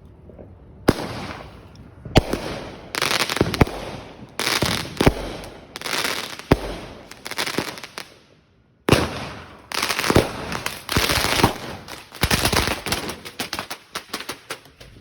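Fireworks exploding: a run of sharp bangs, each trailing into crackle, starting about a second in. There is a short lull past the middle, then the bangs come faster and denser.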